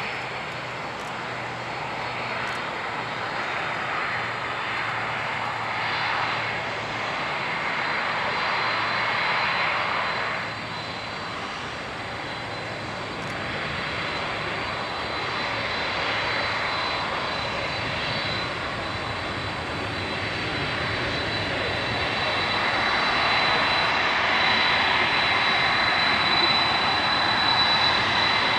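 Boeing 747-400F freighter's jet engines running at low power as it taxis after landing: a steady rushing noise with a thin high whine, growing louder over the last several seconds as the jet turns toward the listener.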